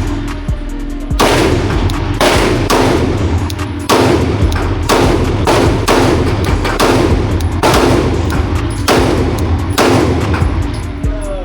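A 9mm Glock pistol firing a steady string of shots, about two a second, each with a short echoing tail. The string starts about a second in.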